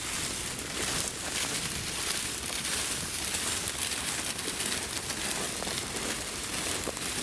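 Footsteps crunching and rustling through dry wheat stubble, over a steady high hiss of field background.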